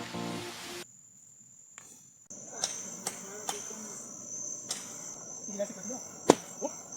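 A tune ends about a second in. Then a steady high-pitched insect trill runs, with several sharp clicks or taps over it, the loudest shortly before the end.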